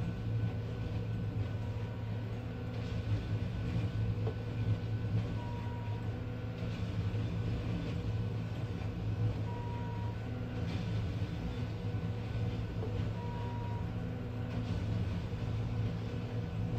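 Railroad ballast tamper's diesel engine running with a steady low hum. About every four seconds a short beep sounds and a burst of noise follows as the machine works through its tamping cycle, its tools packing ballast under each tie.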